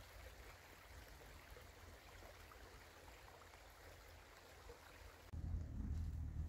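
Faint steady hiss of running water. About five seconds in it gives way abruptly to a much louder low rumble with the treble muffled.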